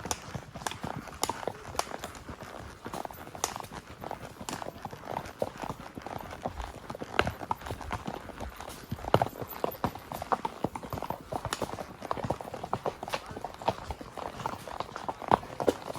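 Horse hoofbeats: a quick, continuous, irregular patter of hoof strikes from a gaited spotted saddle horse moving on the rail.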